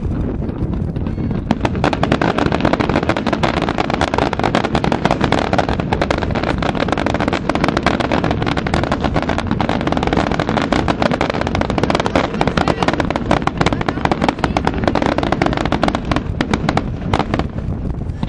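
Aerial fireworks going off in a dense barrage of bangs and crackling, packed tight from about a second and a half in and thinning out near the end.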